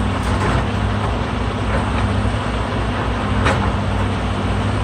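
Heavy diesel engine running steadily with a low, even hum; a brief click about three and a half seconds in.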